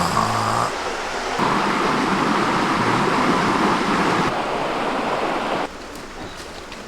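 Steady rushing outdoor noise that steps louder about a second and a half in, then drops sharply near the end.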